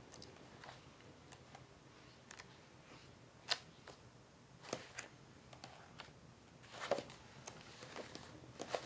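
Pages of a large book being turned by hand: faint, scattered paper clicks and rustles, the sharpest about three and a half seconds in.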